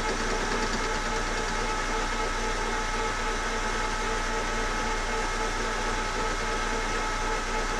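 Lance metal lathe running steadily, turning a collet closer spindle adapter in the chuck while it is gently trued up; a steady whine sits over an even running hum.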